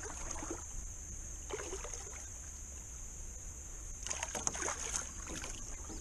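Faint water sloshing and splashing against the side of a small boat as a hooked flathead catfish is worked alongside. Under it runs a steady low rumble and a steady high whine, with a few brief splashes about four to five seconds in.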